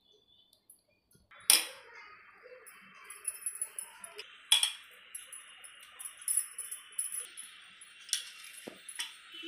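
Four sharp clicks, the loudest about a second and a half in, and a spell of faint light metallic jingling in the middle, over a steady background hiss that comes in after a near-silent first second.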